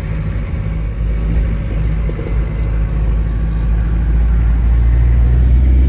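Hindustan Contessa Classic's diesel engine running while the car is driven slowly: a steady low drone. It grows a little louder and heavier in the last second or two.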